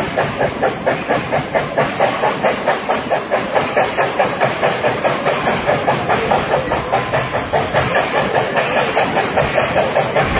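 Steam locomotive working under steam, its exhaust chuffing at a steady, even beat of about four chuffs a second with a hiss of steam.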